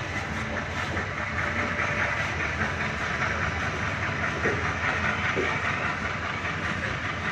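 Passenger express coaches rolling slowly past along a station platform: steady wheel-on-rail noise with a light clatter over the rail joints.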